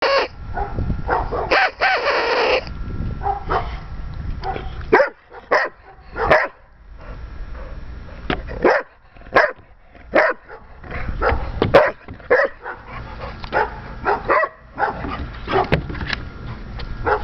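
A dog barking repeatedly in short, sharp barks at irregular intervals.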